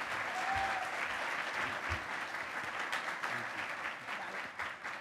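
Audience applauding: dense, many-handed clapping that slowly thins out toward the end.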